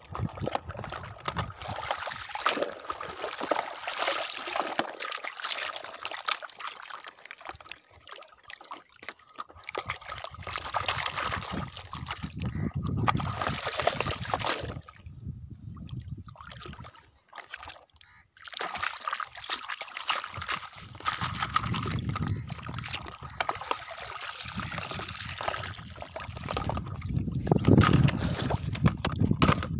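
Shallow muddy water splashing and sloshing around a plastic toy dump truck as it is pushed through it, coming in irregular swells.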